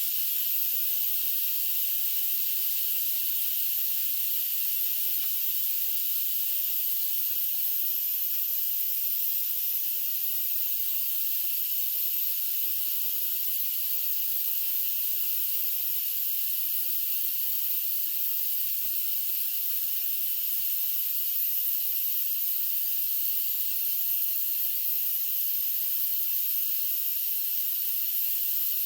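Instant Pot electric pressure cooker venting steam through its pressure-release valve: a steady, even hiss as the pressure is let out, the lid staying locked until all the steam is out.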